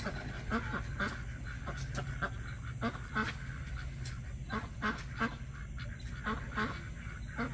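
Domestic fowl calling repeatedly in short honking or quacking calls, a couple each second, over a steady low rumble.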